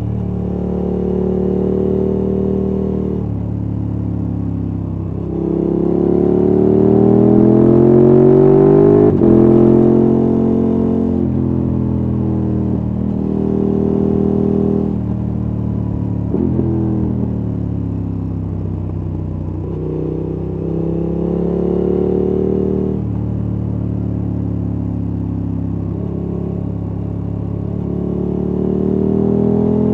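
KTM 1290 Super Adventure S's V-twin engine running through a Wings aftermarket exhaust under way, its revs climbing and dropping back several times as the bike accelerates and eases off, with the pitch cut sharply at gear changes. It is loudest about a third of the way in.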